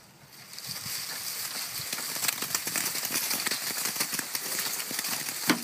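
American persimmon tree being shaken: a dense, irregular shower of crackling and pattering as ripe fruit drops through the branches onto dry leaves and grass, with one sharper knock near the end.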